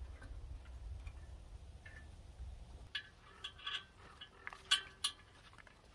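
Small sharp metal clicks and taps from parts being handled and fitted on a sawmill's petrol engine, a handful of them in the second half, over a low rumble in the first half.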